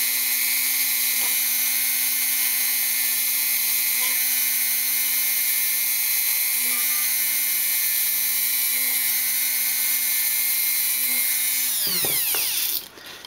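Rotary tool running at high speed with a steady high-pitched whine, a snipped-off pin as its bit, drilling small rivet holes into plastic. Near the end it is switched off and winds down, its pitch falling until it stops.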